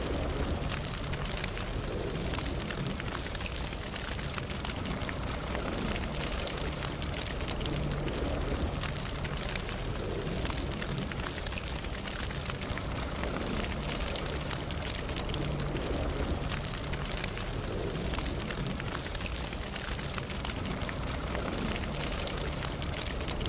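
Campfire burning with a steady low rush and frequent irregular crackles and pops of burning wood.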